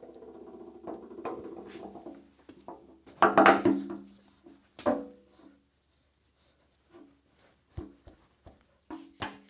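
Steel sleeve of a grinder's elevation screw assembly being pushed into its push-fit bore in the column housing: metal rubbing and scraping with the housing ringing, then a loud clunk about three seconds in and a few light taps. Near the end a mallet starts knocking it home, about four blows a second.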